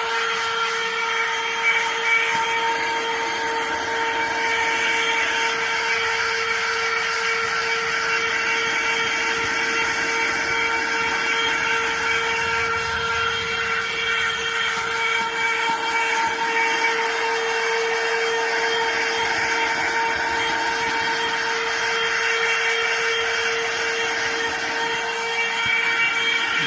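Battery-powered portable handheld vacuum cleaner running steadily with a high motor whine and rushing air while vacuuming a car's interior.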